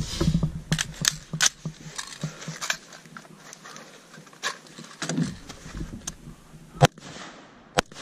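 Single rifle shots from M4 carbines, each a sharp crack: three in the first second and a half, a few fainter ones through the middle, then the two loudest about a second apart near the end.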